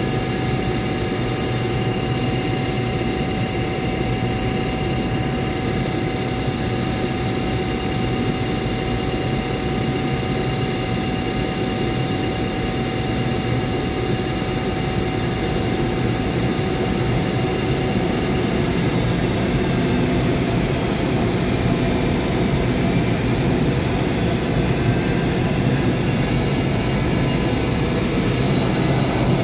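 Electric locomotive standing at close range, its cooling fans and electrical equipment giving a steady loud hum with several whining tones. One whine stops about two-thirds of the way through, and a higher whine rises near the end.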